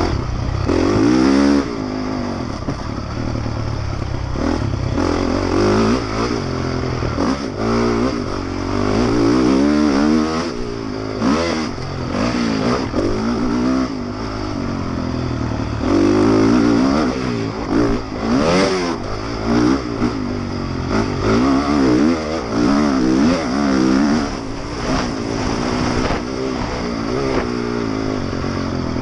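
Honda motocross bike's engine revving hard and backing off again and again as the rider accelerates, shifts and brakes, its pitch rising and dropping many times, with brief knocks from the bike over the rough track.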